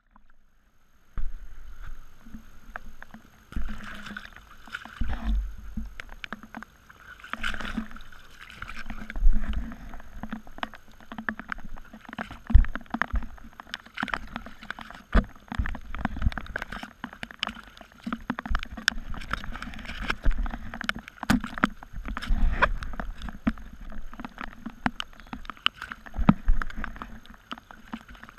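Shallow runoff water sloshing and gurgling around a camera held at the water's surface, with many sharp taps and irregular low bumps against it. It starts about a second in.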